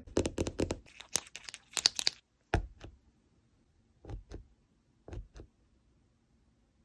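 Posca paint marker being primed: its spring-valve tip pressed down against paper, clicking in two pairs about a second apart in the second half. Before that there is a burst of rapid clicking and then one sharp click.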